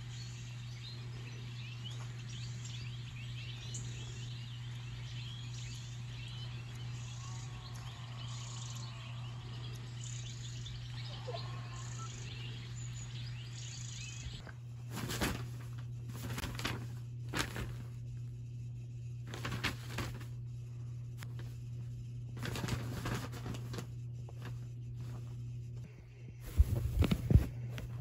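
Small birds chirping and singing, played through a tablet's speaker from a bird video, over a steady low hum. About halfway through the birdsong fades out and short bursts of rustling take over, the loudest cluster near the end.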